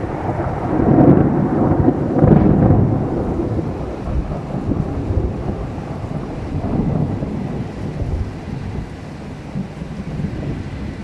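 Thunder after a close lightning flash: a deep rumble that peaks about one and two seconds in, then rolls on and slowly fades, over steady rain.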